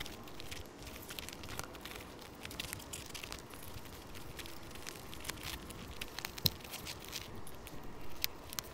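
A 700x28 Goodyear Eagle F1 Super Sport tyre being worked by hand onto a XeNTiS Mark3 SL carbon rim: scattered small clicks and rubbing of rubber against the rim, with one sharper click about six and a half seconds in.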